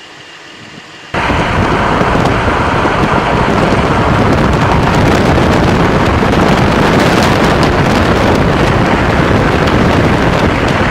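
Loud, steady wind noise rushing over the microphone. It starts abruptly about a second in, after a short quieter stretch.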